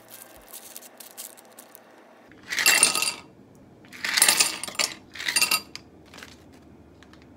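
Handfuls of ice cubes dropped into two footed glass dessert cups, clattering and clinking against the glass in three bursts over about three seconds.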